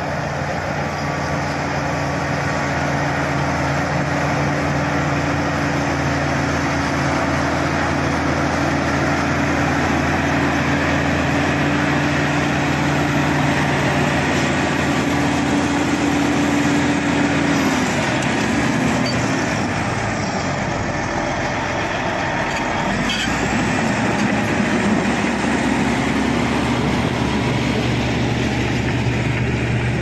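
Shantui crawler bulldozer's diesel engine running steadily under load while pushing soil. A little over halfway through, its note falls and settles lower, with one brief click soon after.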